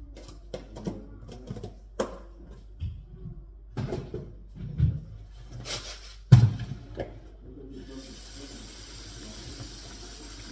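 Plastic basin of rice and a small plastic container knocking and rattling as rice is washed with salt, with one loud knock about six seconds in. From about eight seconds in, a steady hiss of tap water running into the basin.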